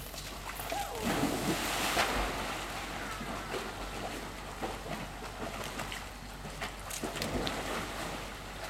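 Dogs jumping into a swimming pool and paddling through the water: a burst of splashing about a second in, then steady sloshing, with another burst of splashing near the end.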